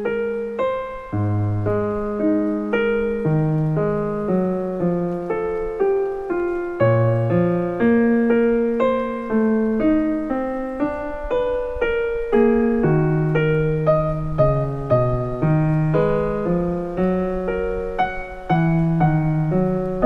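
Background piano music: single notes struck about twice a second, each fading away, over lower bass notes.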